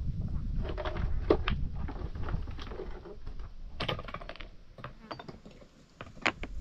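Irregular light clicks and knocks, scattered and unevenly spaced, with a sharper click near the end over a faint low rumble.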